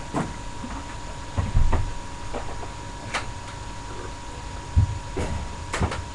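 Scattered knocks and clicks with a few dull thumps, the heaviest about a second and a half in and near five seconds in, over a faint steady hum.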